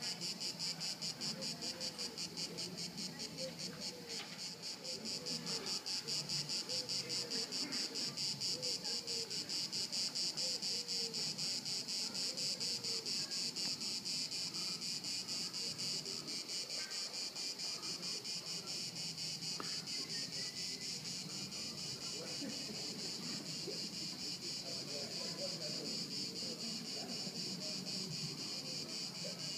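Dense chorus of many crickets singing at once, a high, fast, pulsing trill that holds steady without a break.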